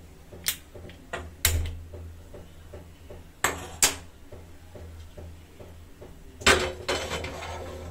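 Kitchen clatter of metal cookware and utensils being handled at the stove: a handful of sharp clanks. The loudest comes near the end and is followed by about a second of rattling noise.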